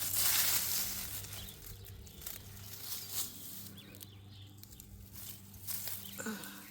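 Garden soil being scraped and pushed over small seed potatoes to cover them: a loud rustling scrape at the start, then a few shorter scrapes.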